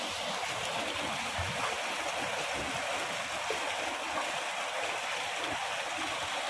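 Tubewell water pouring out steadily, an even rushing noise of running water.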